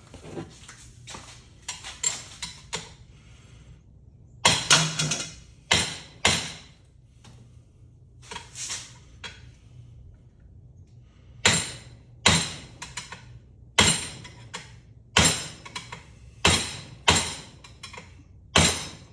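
Sharp metal knocks and clanks as a ceiling fan's housing is worked on to free a stuck part: scattered strikes at first, then from about halfway a steady run of blows, about one and a half a second.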